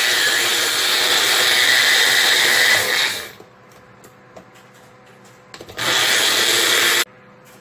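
Magic Bullet personal blender running, blending avocado and onion into guacamole. It makes one long run that stops about three seconds in, then a short pulse of about a second near the end that cuts off suddenly. A few light clicks come in between.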